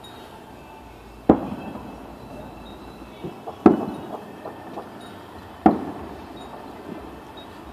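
Celebratory gunshots: three loud single shots about two seconds apart, each trailing off in an echo, with a few fainter distant pops in between.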